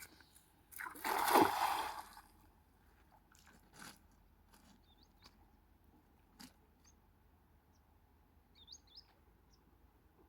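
A splash of water about a second in, lasting about a second and a half, then a few faint ticks and two short high chirps near the end.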